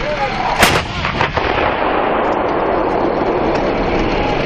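A heavy gun fires one loud shot about half a second in. A few weaker cracks follow, then a steady rumble of noise.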